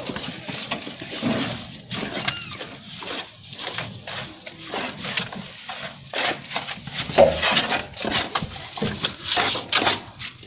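Steel plastering trowel scraping and smoothing wet cement mortar on a concrete surface, in short, irregular strokes.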